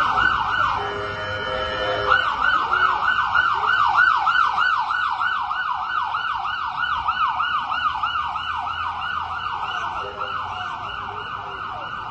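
Emergency vehicle siren sounding a rapid yelp, about three pitch sweeps a second. It briefly changes to a steadier tone about a second in, then goes back to the yelp, continuing at a steady level.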